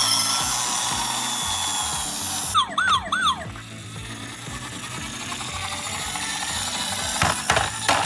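Toy ambulance's electronic siren: a few quick rising-and-falling wails about three seconds in, with more sweeps near the end, over a steady whirring hiss.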